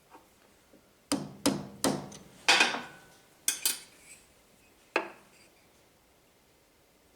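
Metal-on-metal hammer taps on a spanner wedged in a planer cutter block, knocking a low knife up a little at a time. There are about seven sharp taps over four seconds, the loudest near the middle with a brief ring.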